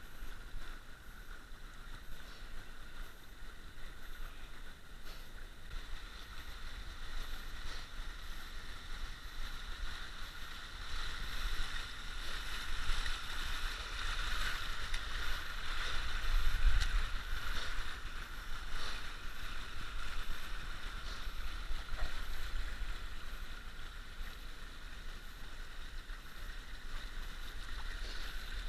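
Shallow water of a shale creek running steadily, growing louder through the middle, with a low rumble on the microphone.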